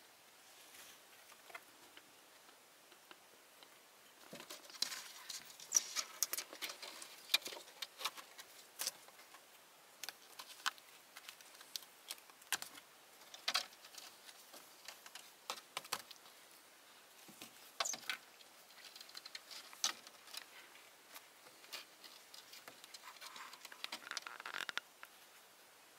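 Playing kittens' paws and claws scrabbling and tapping on old wooden boards and a rotten log: faint, scattered clicks and scratchy rustles in irregular flurries.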